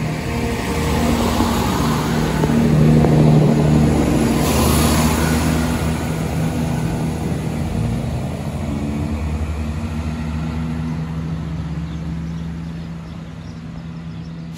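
Class 170 Turbostar diesel multiple unit pulling away from the platform, its underfloor diesel engines running with a steady hum. It is loudest about three seconds in and fades as the train draws off into the distance.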